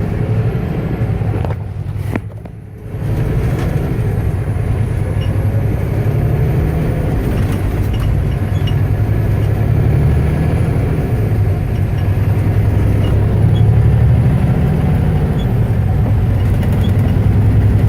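Truck engine and road noise heard from inside the cab while accelerating up to highway speed, the transmission shifting up through the gears, with a brief drop in level about two seconds in.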